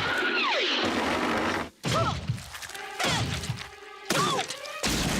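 Cartoon slapstick sound effects: a falling tone in the first second, then four knocks and crashes about a second apart, with short sliding tones between them.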